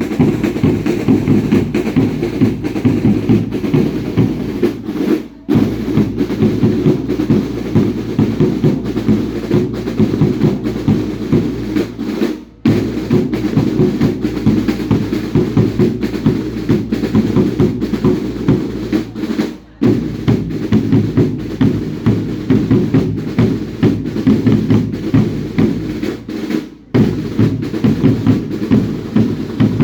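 Drums of a baile indio dance troupe beating a fast, steady rhythm, with four brief breaks spread through it.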